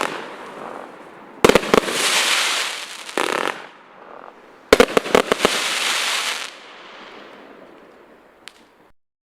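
A 216-shot multi-calibre compact firework cake firing. Two volleys of sharp bangs, about one and a half seconds in and again near five seconds, are each followed by about two seconds of dense crackle. The sound then dies away and stops just before the end.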